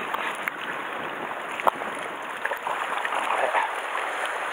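Seawater washing and sloshing around shore rocks, a steady rushing wash, with one sharp click about a second and a half in.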